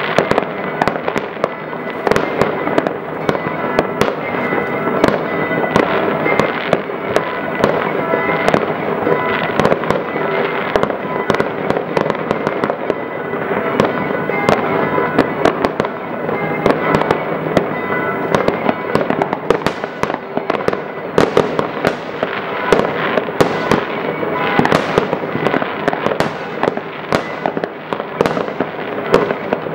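Many fireworks going off at once across a city: a continuous din of crackling and popping, broken by frequent sharp bangs.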